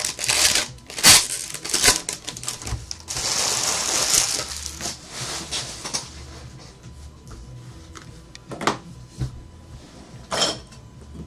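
Foil baseball card pack being torn open and crinkled in the hands, a dense crackling rustle for the first several seconds, loudest in the middle. Then it goes quieter, with two short knocks near the end.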